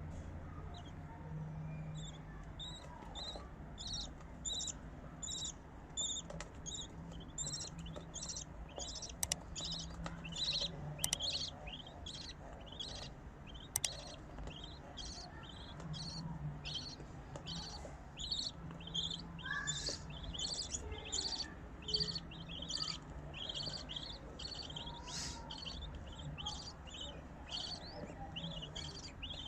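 Budgerigar chicks giving a steady run of short, high begging cheeps, about two a second, while their mother feeds them.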